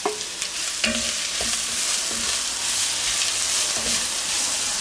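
Chopped bell peppers sizzling in hot clarified butter with frying onions in a cast-iron cocotte, stirred in with a wooden spoon. The frying is a steady hiss, with a few light knocks of spoon on pot about a second in.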